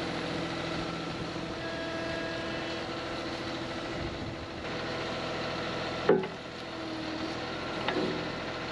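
Komatsu excavator's diesel engine running, with the hydraulics whining and shifting in pitch as the arm lowers its quick hitch onto a bucket. There is a sharp metal clank about six seconds in and a lighter one near the end as the hitch meets the bucket.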